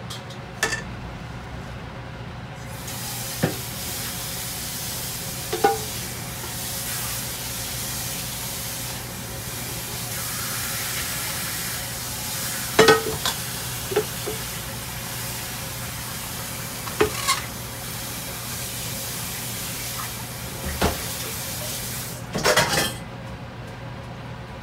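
Kitchen sounds: a steady rushing hiss that starts about two and a half seconds in and cuts off near the end, with scattered clinks and knocks of pots and pans, the loudest about halfway and just before the hiss stops.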